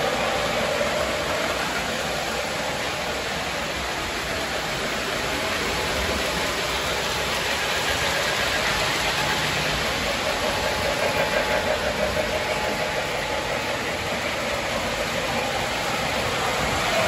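Several model trains running at once on a layout: a steady rolling rumble of wheels on track and electric motors, with a brief fluttering rise about two-thirds of the way through.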